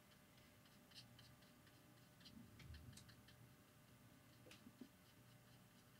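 Near silence, with faint scattered ticks and light scratches of a fine liner brush stroking watercolour paper.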